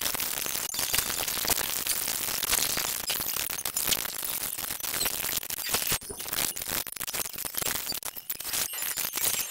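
A cartoon soundtrack sped up enormously, its dialogue, music and effects blurred into a dense, chattering hiss broken by rapid clicks and short drop-outs.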